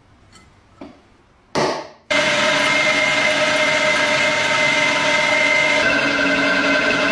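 A drill press running steadily as it bores a small metal plate held in a machine vise, starting about two seconds in after a brief burst. A little before the end its tone shifts as a countersink bit cuts the edge of the hole.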